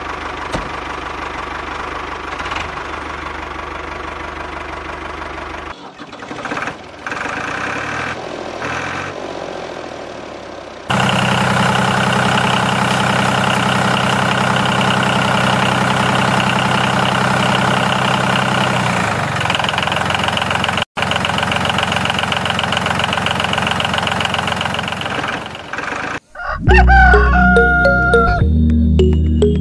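Farm sound effects: a steady tractor-like engine running with roosters crowing, then background music comes in near the end.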